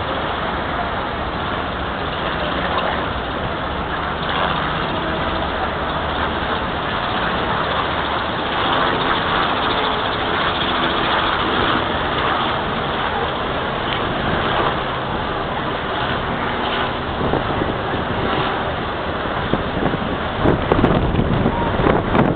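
Steady outdoor rush of wind and background noise. Wind buffets the microphone, gusting harder about twenty seconds in.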